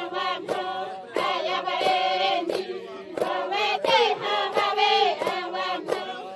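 Xavante women singing a chant together in unison, with a sharp beat keeping time about every two-thirds of a second.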